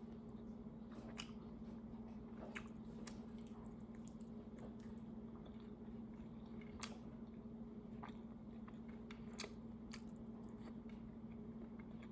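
A person chewing a mouthful of braised pork and rice, with soft irregular mouth clicks and smacks. A steady low hum runs underneath.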